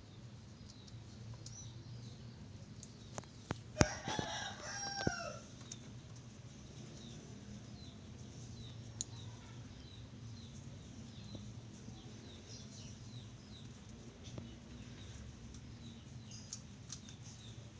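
A rooster crows once, about four seconds in, over small birds chirping and a steady low hum, with a few sharp clicks.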